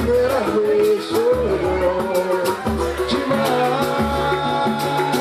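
A live samba band playing, with a regular bass pulse, percussion and a wavering melodic line over it.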